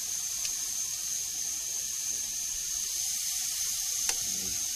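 Marinated T-bone steaks sizzling on a hot grill grate as they sear over high heat, a steady hiss, with two light clicks of metal tongs, about half a second in and near the end.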